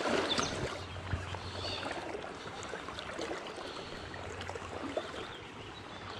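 Water running over a shallow, clear trout-river riffle, with small clicks and rustles from a spinning reel being wound.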